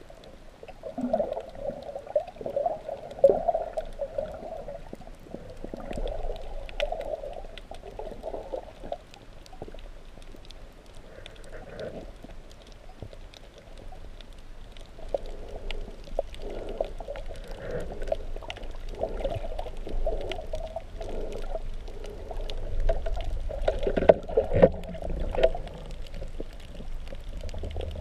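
Muffled underwater noise of a freediver swimming, heard through a waterproof camera housing: water rushing past in surges that swell and fade every second or two, over a low rumble, with scattered faint clicks.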